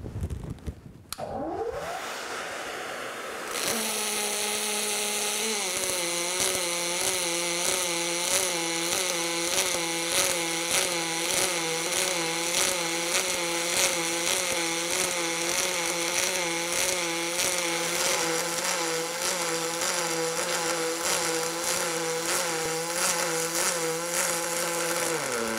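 Pulsed MIG welding arc on aluminium with AlMg filler wire, giving the steady hum typical of pulse-controlled droplet transfer, its pitch wavering slightly and regularly, with a faint crackle. The arc strikes about three and a half seconds in and cuts off just before the end.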